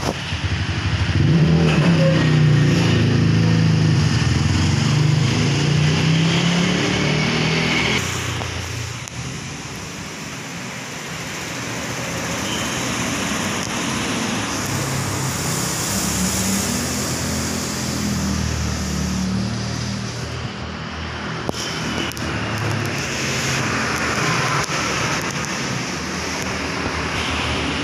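A motor vehicle engine running with a steady low hum. It is loudest for the first eight seconds or so, then quieter and wavering in pitch.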